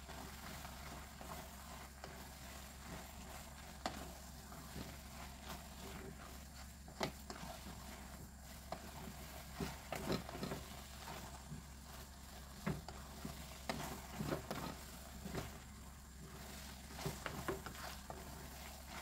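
A wooden spoon stirring pancit canton noodles in sauce in a metal pot, with scattered soft knocks and scrapes against the pot over a faint steady sizzle.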